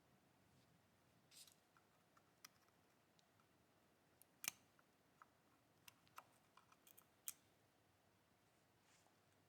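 Faint, scattered clicks and light taps of small parts being handled, sharpest about four and a half seconds in and again near seven seconds.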